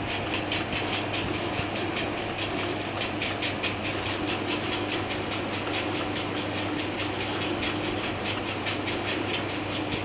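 Rolling shutter motor running steadily in the down direction, unloaded on a bench, driving toward its lower limit switch. Its electric motor hums while the open spur gears and limit-switch screw mechanism tick with a fast, even rhythm.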